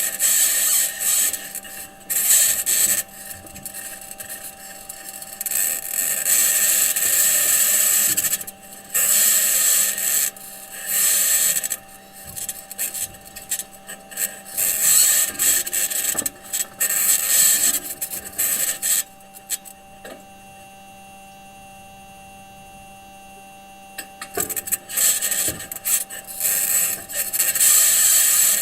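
Mars rover Perseverance's metal wheels grinding and scraping over sandy Martian ground as it drives, picked up by its onboard microphone: stop-start bursts of harsh scratchy rubbing over a steady hum. The rubbing drops away for a few seconds about two-thirds of the way through.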